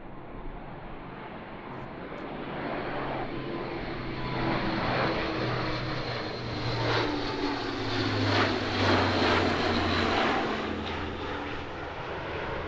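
Airbus A400M's four turboprop engines droning as the aircraft flies past. The sound grows louder toward the later part, with its pitch sliding slowly down as it passes, then eases off near the end.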